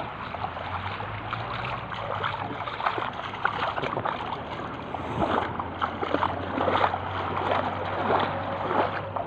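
Shallow seawater sloshing and splashing in quick, irregular little splashes as someone wades through it, over a steady low hum.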